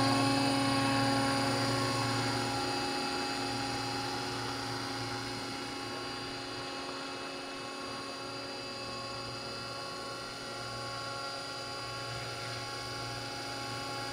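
Scale RC helicopter's motor and rotor blades running with a steady whine of several held tones, fading over the first few seconds as it lifts off and flies away, then holding steady at a distance.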